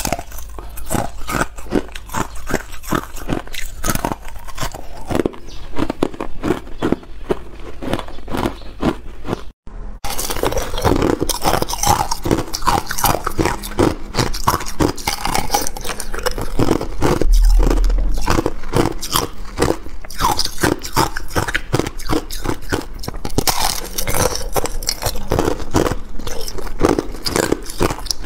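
Thin sheets of ice being bitten and chewed, a rapid run of sharp cracks and crunches. There is a brief break about ten seconds in, after which the biting and crunching carry on.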